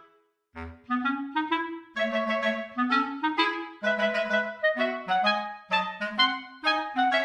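Background music: a light, bouncy clarinet melody of short notes, a few per second. The music drops out for about half a second at the very start, then comes back in with a brief low thump.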